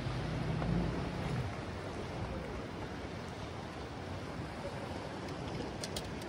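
A boat motor's low hum dies away about a second and a half in, leaving a steady rush of wind and water, with a few faint clicks near the end.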